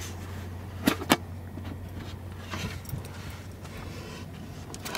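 Plastic snap-on lid of a coffee canister being pried off, with two sharp clicks about a second in, then a few faint light knocks of the plastic, over a steady low hum.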